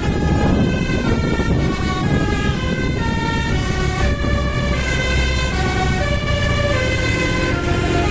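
Bus telolet multi-tone musical horn playing a tune of stepped notes, each held about a quarter to half a second, over low engine and road rumble.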